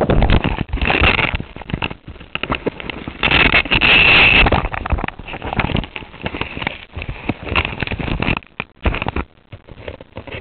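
RC boat heard from its onboard camera: a high motor whine over choppy crackling of water spray and hull slap as it runs across the water, rising in two louder stretches and dropping away sharply about nine seconds in.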